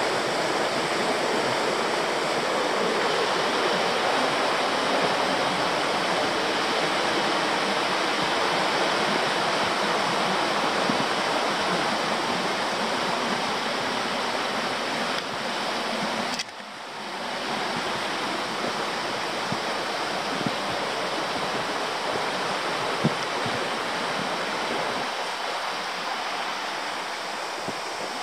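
A river running fast over rocky shallows: a steady rush of water. About halfway it drops out for a moment, then carries on a little quieter.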